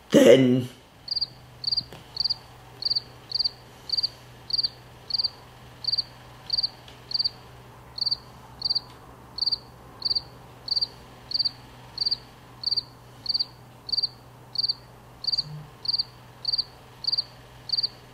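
Cricket chirping sound effect: short single chirps repeating evenly, a little under two a second, the stock 'crickets' gag for an awkward silence.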